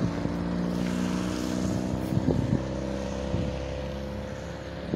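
A motor vehicle's engine running with a steady hum, slowly getting quieter.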